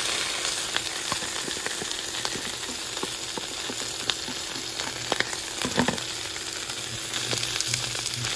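Beef sizzling in hot vegetable oil in a flat pan as its water cooks off: a steady hiss full of small crackles, with a few louder pops a little past the middle.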